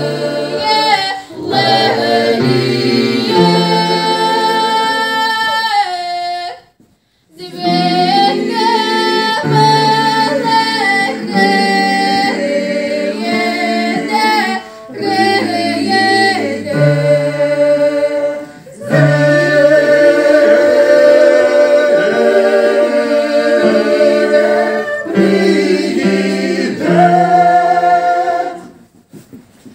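Ukrainian mixed choir singing, phrase by phrase with short breaks between lines. The singing stops briefly about seven seconds in and again just before the end.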